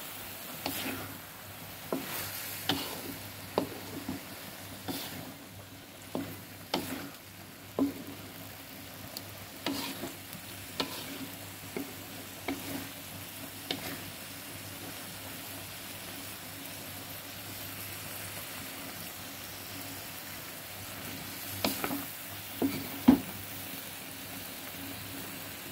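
Long beans and tempeh sizzling in an aluminium wok while a wooden spatula stirs them, scraping and knocking against the pan many times. The knocks pause for several seconds past the middle, leaving only the sizzle, and come back briefly near the end.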